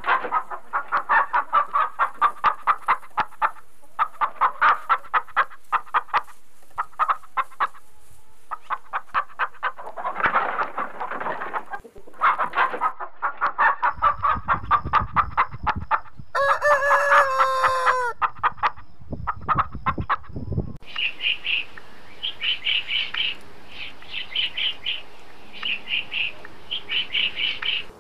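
Chickens clucking in rapid runs of short calls, then a rooster crows once a little past halfway, over a low rumble. In the last quarter a bird gives repeated high chirping calls.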